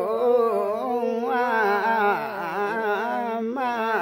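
A man singing a traditional Limbu song unaccompanied, one voice holding long, wavering notes.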